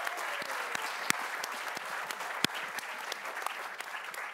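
Audience applauding, a dense patter of clapping with a few louder single claps standing out.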